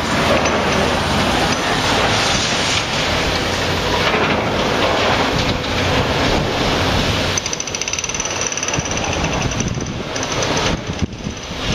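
Volvo excavator with a hydraulic concrete pulverizer attachment working: loud, continuous machine noise. About seven seconds in, a high-pitched steady squeal comes in.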